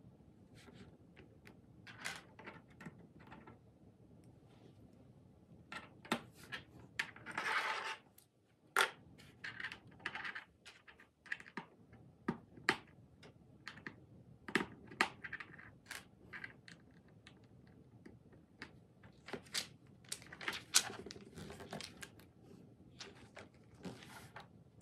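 Loose plastic LEGO bricks clicking and clattering on a tabletop as pieces are picked through and fitted together: a long run of sharp, irregular clicks, with a longer rustling stretch about seven seconds in.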